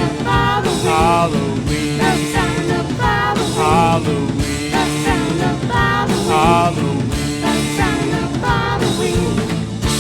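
Upbeat band music with a steady drum beat and a short, wavering lead melody repeated in phrases.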